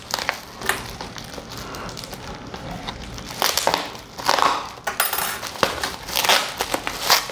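Bubble wrap crinkling and rustling as hands pull it loose from around a small cardboard box, in irregular bursts that grow louder about three and a half seconds in and again near the end.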